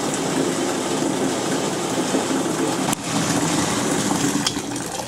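Bathtub faucet running a steady stream into a plastic bucket of soapy water. The flow eases off near the end as the handle is turned to shut the tap.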